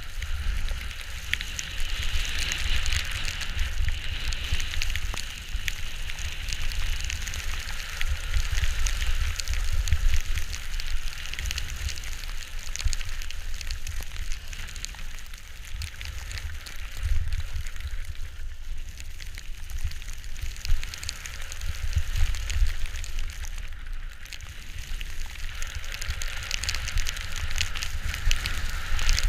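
Crackling hiss of a ride sliding and carving over snow, with wind rumbling on the microphone and swelling in gusts.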